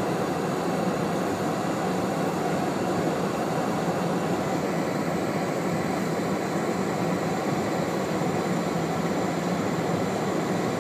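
Steady car noise heard from inside the cabin: engine and tyres running on snow-covered road.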